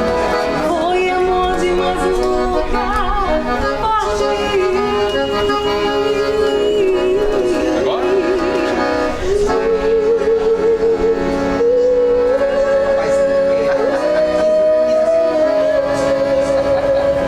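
Forró band playing live, a long held, wavering melody line carried over a steady accompaniment.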